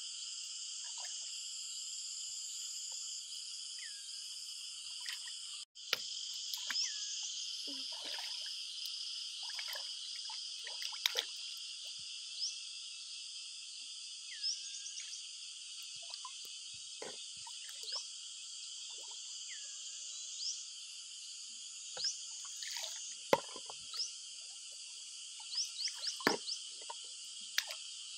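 Shallow pond water sloshing and plopping as hands grope along the bottom, in short scattered splashes that come more often near the end, over a steady high-pitched chorus of calling frogs and insects.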